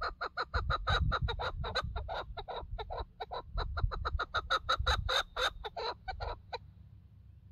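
Chukar partridge calling a long run of rapid chuck notes, about six a second, which stops about six and a half seconds in.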